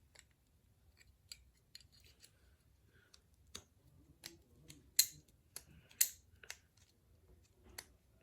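Hand cutting tool snipping into toy parts: a string of irregular sharp snips and clicks, the loudest two about five and six seconds in.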